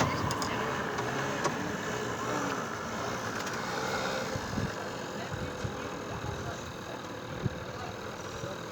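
Steady background noise, like passing traffic or a running engine outside, with a few light knocks as metal parts of a washing machine's spin dryer are handled and seated.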